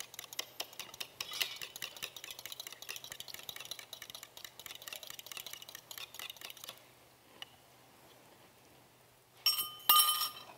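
A spoon stirring quickly in a small cup, making dense light clinks for about seven seconds. About a second before the end come a few louder, ringing clinks of crockery.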